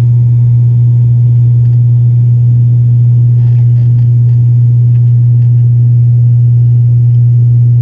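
Turboprop airliner's engines and propellers heard from inside the cabin during the climb after takeoff: a loud, steady drone with a strong low hum that holds one pitch. A few faint ticks come in about three and a half seconds in.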